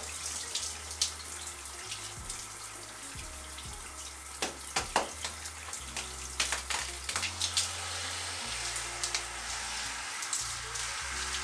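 Shower water running while hands work shampoo lather into long wet hair, with scattered small wet squelches. Near the end the handheld shower head sprays directly onto the hair to rinse it.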